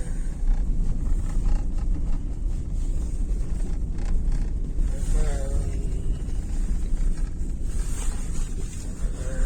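Steady low wind rumble on the microphone, with a short wavering call or voice about five seconds in and again near the end.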